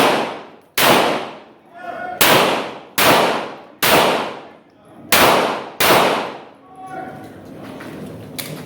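Seven 9mm pistol shots fired in quick, uneven strings over about six seconds, each with a long echoing tail. A faint ringing tone hangs between some of the shots.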